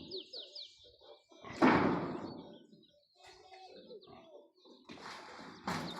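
A bird chirping in a few quick falling notes, then a loud thud or slam about a second and a half in that dies away over a second. Another sudden knock near the end.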